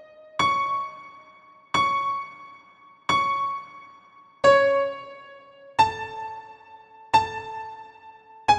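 Digital piano keyboard played slowly by a beginner: seven single notes struck one at a time, evenly spaced about a second and a third apart, each dying away before the next.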